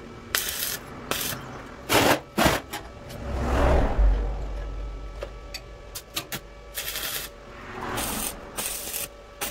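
Stick (arc) welder laying a series of short tack welds on steel tubing: about eight brief crackling arcs, each well under a second, with pauses between them.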